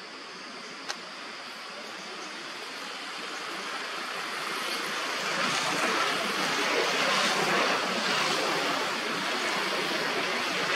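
Steady rushing noise that swells over the first five seconds and then holds, with a single sharp click about a second in.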